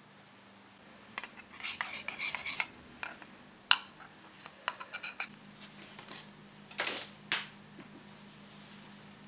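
Clicks, taps and short scrapes of small plastic cups and candy-mold trays being handled on a tabletop, in several brief clusters with one sharp tap a little over a third of the way in, over a faint steady hum.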